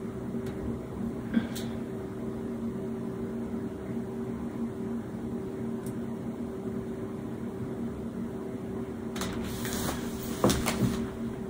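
Steady electrical hum of a running household appliance, with a few fixed low tones. Near the end come clothing rustles and a single sharp knock as someone moves about.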